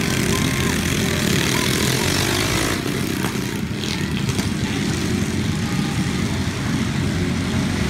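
Several small minibike engines running together at racing speed, a steady, dense engine buzz as the bikes lap the dirt track.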